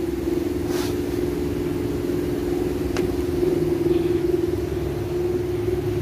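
Steady motor hum with a low rumble beneath it, and a single sharp click about three seconds in.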